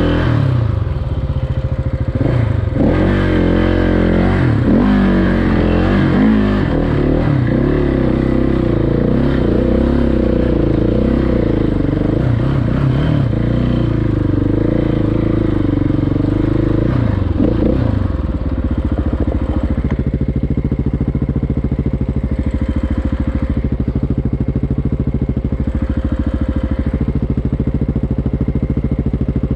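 Single-cylinder dual-sport motorcycle engine ridden off-road, its pitch rising and falling with the throttle for about the first eighteen seconds, then running at a steady, even speed.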